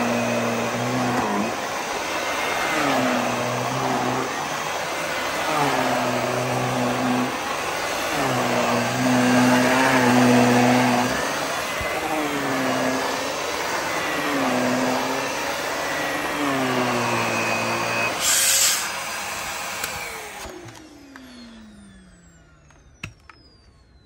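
Dyson upright vacuum cleaner running over a rug, its motor note dipping and recovering in a repeating cycle about every two seconds as it is pushed back and forth. A brief loud hiss comes near the end, then the motor is switched off and winds down with a falling whine, followed by a single click.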